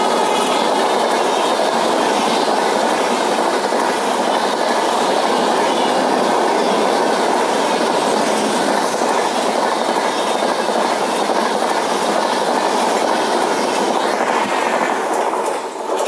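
Coaches of the Mumbai Rajdhani Express passing close by at speed: a loud, steady rush and rattle of wheels on rail. It falls away sharply near the end as the last coach goes by.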